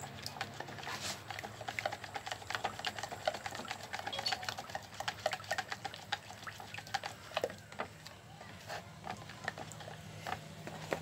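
Epoxy primer and hardener being stirred in a mixing cup: many quick small clicks and scrapes of the stirrer against the cup, thinning out after about seven seconds, over a faint steady low hum.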